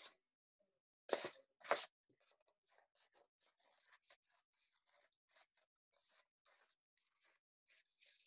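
Scissors snipping through folded paper in a quick run of small faint cuts, about five a second. Two louder crisp sounds of the paper being handled come a little over a second in.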